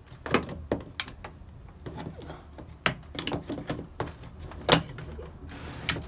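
The plastic exhaust-hose connector of a portable air conditioner being pushed into its rear port and twisted to lock. It gives a series of hard plastic clicks and knocks, with a short scraping slide near the end.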